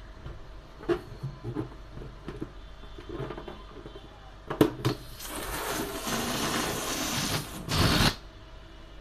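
Toy rubber balloons being handled, with scattered taps and clicks, then a steady hiss for a couple of seconds and a short loud burst near the end.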